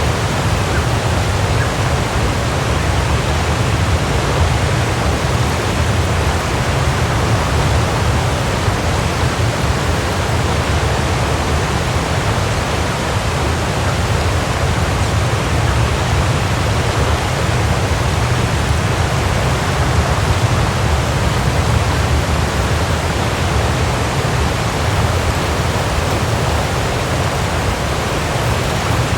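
Waterfall: a steady rush of falling water, heaviest in the low rumble, with no change in level.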